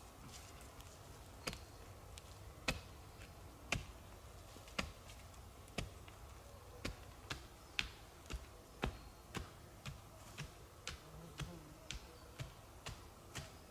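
A series of short, sharp taps or knocks, about one a second at first and quickening to about two a second in the second half.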